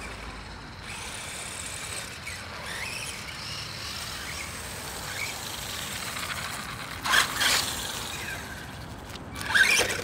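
Small electric RC cars driving on asphalt: a motor whine that rises and falls over tyre noise, with two louder rushes of noise, about seven and nine and a half seconds in.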